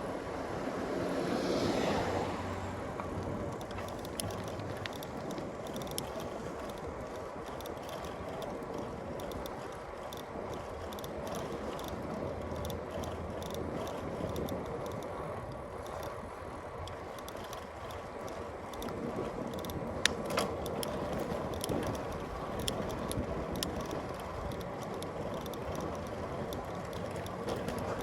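Bicycle being ridden on a city street: tyre and road noise with small ticking and rattling from the bike's freewheel and parts. A vehicle passes about two seconds in, and there is a sharp click about twenty seconds in.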